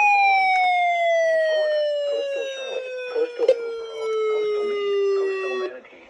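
Siren-like warning tone sliding steadily down in pitch for about six seconds, then cutting off suddenly just before the end, with faint speech running beneath it.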